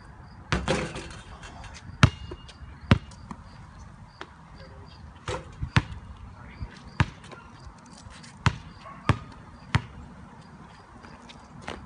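Basketball bouncing on a concrete driveway: single sharp knocks at irregular intervals, roughly one a second, with a louder, longer knock about half a second in.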